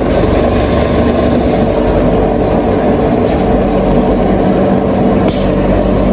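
Loud, steady mechanical hum with a few held tones, like a motor or machine running continuously.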